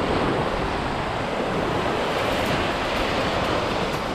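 Surf breaking and washing over jetty rocks, a steady rushing wash of water, with wind buffeting the microphone.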